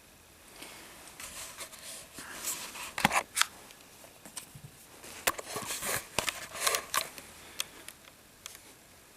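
Plastic action figure being handled and posed: a string of sharp clicks and short scrapes as its limbs and accessory are moved, loudest in two clusters a few seconds apart.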